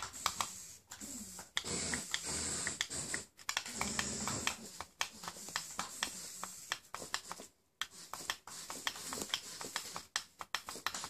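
Rapid, irregular clicking from the remote-controlled inflatable flying fish toys, a shark and a clownfish, as their small motor-driven tails swing. A brief murmur of voices comes in about two and four seconds in.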